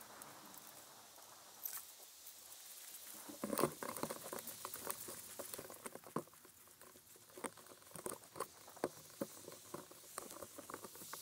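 Footsteps crunching and rustling through dry fallen leaves and grass: irregular crackles that grow louder about three and a half seconds in.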